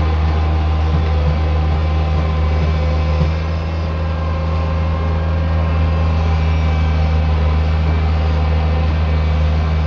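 Heavy diesel engine of road-works machinery running steadily at an even low pitch, with a few faint clicks in the first few seconds.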